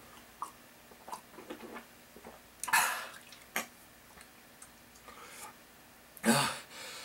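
A man sipping water from a mug with small swallowing clicks, then a harsh breathy cough about three seconds in and a short hoarse voiced outburst near the end. His throat is irritated by the ground cinnamon he breathed in.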